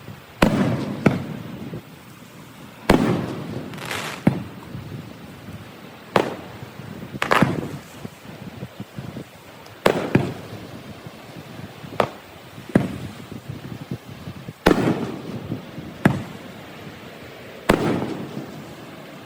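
Aerial fireworks bursting overhead: a sharp bang every second or two, about a dozen in all, several of them followed by a rumbling, echoing tail.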